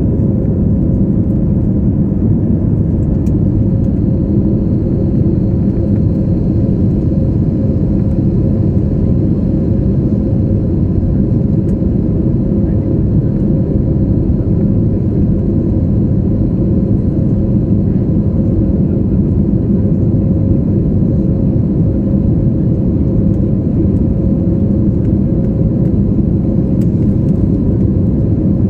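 Airbus A320 jet engines and rushing air heard from inside the cabin during the climb after takeoff: a loud, steady low rumble with a faint steady hum over it.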